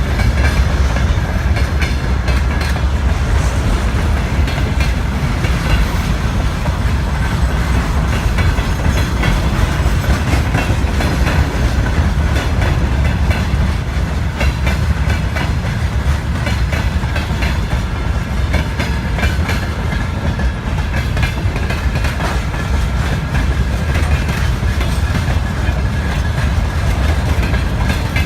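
Freight train wagons rolling past at steady speed, the wheels clacking over rail joints amid a continuous rumble.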